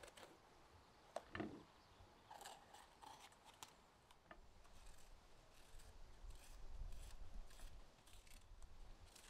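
A kitchen knife slicing strips off a raw bell pepper held in the hand: a series of faint, crisp cuts through the crunchy flesh, with a dull knock about a second and a half in.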